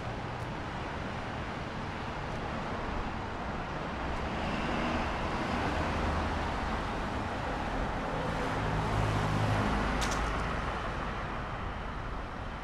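Cars passing on a street: engine and tyre noise swells and fades twice, loudest about nine seconds in, with a short click about ten seconds in.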